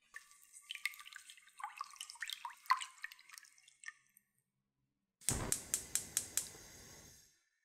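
A whisk beats an egg-yolk and milk custard mixture with quick clinks and small liquid splashes. About five seconds in, a gas stove burner is lit: its igniter clicks about six times in quick succession over the rush of gas catching and burning.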